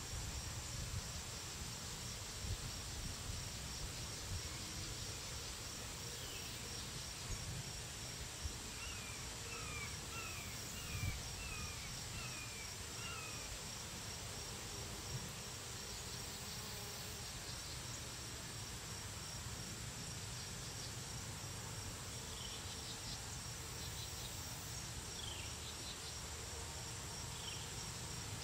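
Summer outdoor ambience: insects trill steadily and high, while a bird gives a quick run of short falling chirps about nine seconds in and more scattered ones near the end, over a low rumble.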